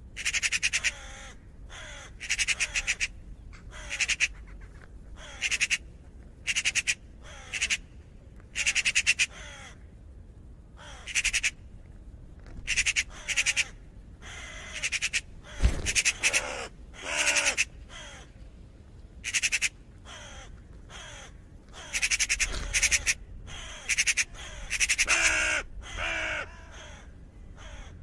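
Raven calling over and over: harsh caws, often in quick pairs or threes, with pauses of a second or two between.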